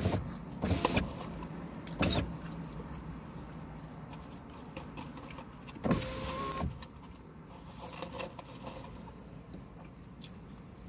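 Parked car with its engine idling, heard from inside the cabin as a steady low hum, with a few short knocks and a brief louder noise about six seconds in.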